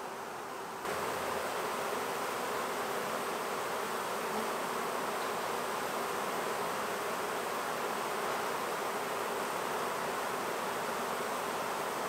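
Swarm of honeybees buzzing steadily at a hive box as they settle in, many fanning their wings at the top bars; the fanning is taken as a sign that the queen is inside and that they are calling the rest of the swarm in. The buzzing gets louder about a second in and then holds steady.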